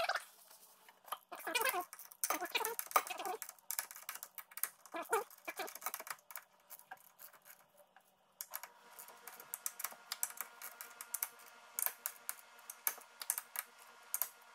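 Irregular clicks and light metal rattles of hands and a small tool working at the filter cover on the mini excavator's hydraulic tank. A faint steady hum comes in a little past halfway.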